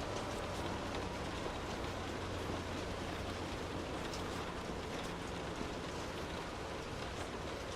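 Steady rain heard from indoors, with individual drops pattering over a continuous hiss. A low hum sits underneath for a few seconds in the middle.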